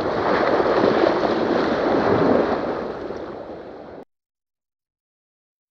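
Lake water rushing and splashing. It fades over its last second or so, then cuts off abruptly to dead silence about four seconds in.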